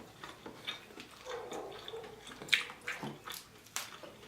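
Wet, smacking mouth sounds of a person eating juicy boiled seafood: a run of short sharp smacks and slurps, the loudest about two and a half seconds in.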